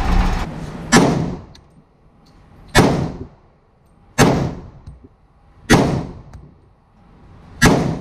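Five gunshots from a Glock 31 pistol in .357 SIG, mounted in a CAA Micro Conversion Kit chassis, fired one at a time about every one and a half to two seconds. Each shot has a short echo from the walls of an indoor range.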